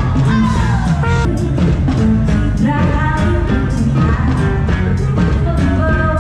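Live band music with a singer and a steady beat, with a trumpet played right at the microphone.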